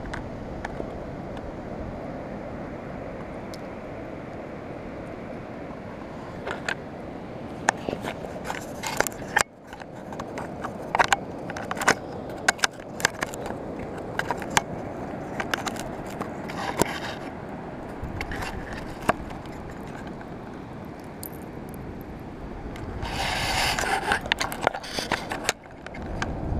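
Irregular sharp clicks and scrapes right on the camera housing, thickest through the middle, over a steady low rumble of wind and surf. A louder scraping rush comes near the end.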